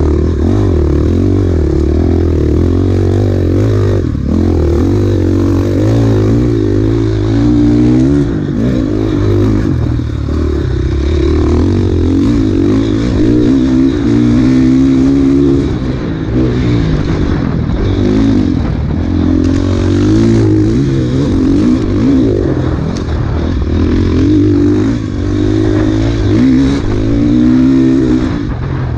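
Enduro dirt bike engine under hard riding, its pitch climbing and dropping over and over as the throttle is opened and shut every second or two.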